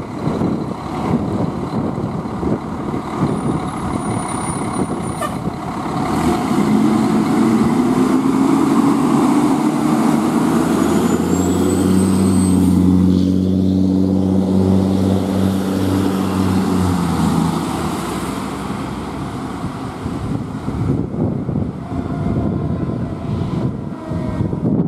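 Fire ladder truck's diesel engine pulling out and driving close past. Its note climbs as it accelerates about six seconds in, holds steady and loud, then fades after about eighteen seconds.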